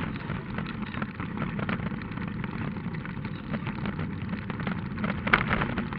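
Rally car driving hard on a gravel road, heard from inside the car: a steady engine and road drone with frequent small clicks and rattles, and one louder knock about five seconds in.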